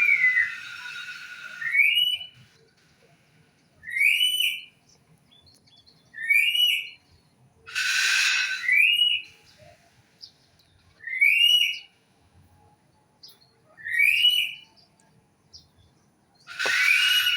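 A bird repeating a short, rising whistled note about every two to three seconds, with a louder, harsh, raspy call at the start, once midway and again at the end.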